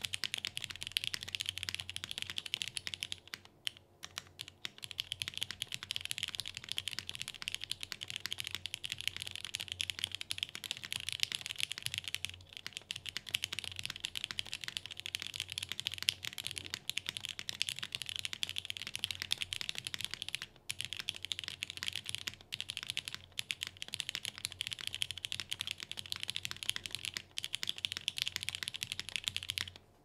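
Continuous typing on a 7V by Gok mechanical keyboard fitted with lubed new-old-stock vintage Cherry MX Black linear switches, a UHMWPE plate and GMK keycaps. The steady run of keystrokes is broken by a few short pauses, the longest about four seconds in.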